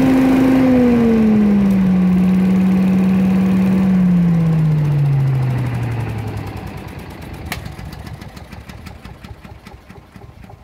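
Billy Goat leaf vacuum's Briggs & Stratton 825E engine running with a steady whine that drops a step in pitch about a second in, then is shut off: about four seconds in the pitch glides down and the sound dies away as the engine and fan spin down. A single sharp click follows, then faint rapid ticking as it coasts to a stop.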